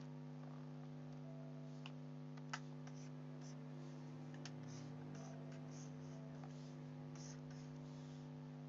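Quiet background music of steady held tones, with a couple of faint clicks about two seconds in.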